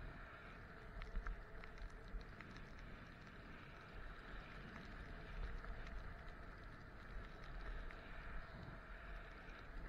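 Skis sliding and scraping over packed snow during a downhill run, a steady hiss with a few small clicks, over a low rumble of wind against the moving microphone.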